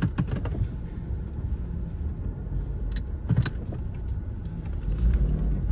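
Steady low hum of a car running, heard from inside the vehicle, with a few light knocks, two of them about three seconds in.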